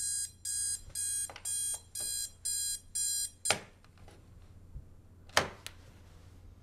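Electronic alarm clock beeping in high, pitched bursts about twice a second, seven times, then stopping. A sharp knock follows about half a second after the last beep, and another about two seconds later.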